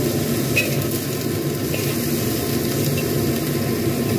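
A tofu, oyster-mushroom and greens stir-fry sizzling in a hot wok with a splash of water just added, over a steady low rumble. A few light scrapes of the spatula against the wok.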